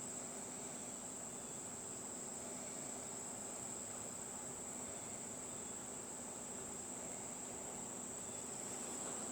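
Faint, steady insect chorus: a continuous high-pitched shrill.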